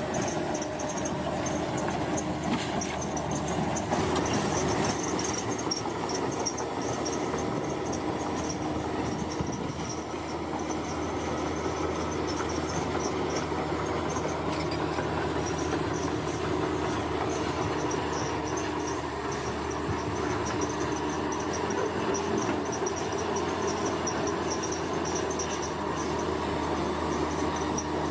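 Bulldozer's diesel engine running steadily under load, with a continuous high, pulsing chirp of insects over it.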